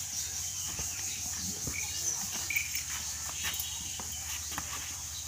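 Steady high-pitched insect chirring with a faint even pulse, with a few small knocks and rustles.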